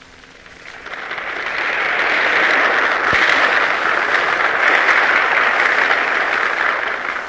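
Large crowd applauding in response to a speech, swelling up about a second in and easing off near the end, heard on a 1942 recording.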